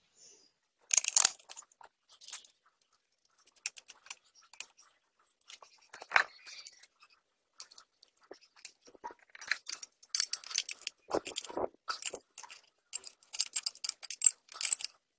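Irregular metallic clicks and clinks of open-end spanners working the bolts on an angle grinder's head, with a loose saw chain rattling as it is handled; the clinks come thicker in the second half.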